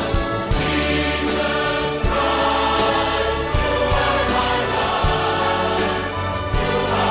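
Choral music: a choir singing with instrumental backing and drum hits.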